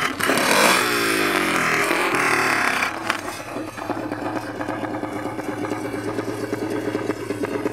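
Honda CRF450 single-cylinder four-stroke engine in a Barbie Power Wheels Jeep revving hard as it hits a snow jump, the revs sweeping up and then falling away in the air. About three seconds in, with a sharp knock as it comes down, the engine drops to a steady idle.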